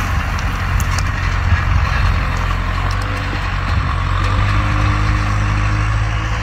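Farm tractor's diesel engine running steadily under load as it pulls a tillage implement through dry ground, a constant low engine drone.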